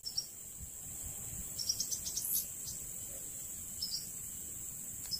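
Steady high-pitched drone of crickets and other insects, with a few short high chirps scattered through.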